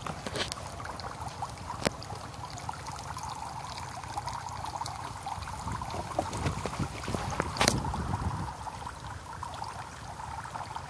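Water pouring and trickling out of a plastic-bottle fish trap as it is tipped over a plastic bucket. Two sharp plastic clicks come from handling the bottle, one about two seconds in and one a little past halfway.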